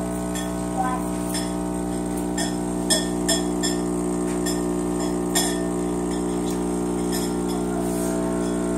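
Mr. Coffee Cafe Barista espresso machine's 15-bar pump running with a steady hum while espresso brews onto frothed milk, with a scattering of short, sharp clicks and ticks.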